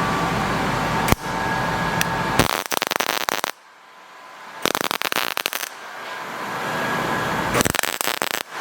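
Welding arc crackling in three short bursts of about a second each as the metal fender flares are tack-welded to the car's fenders, with a steady hum between the bursts.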